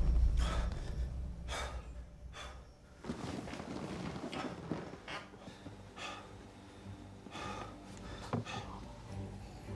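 A man breathing heavily: a series of audible breaths and sighs, roughly one a second, over a faint low steady drone.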